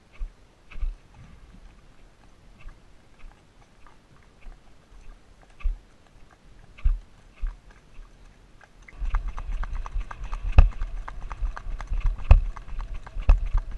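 A GoPro camera that has worked loose on a rider's helmet clicks and knocks every second or so as the horse moves along a paved road. About nine seconds in the horse speeds up, and the sound turns into a louder, dense low rumble with rapid hoofbeat-like clicks and a few heavy knocks.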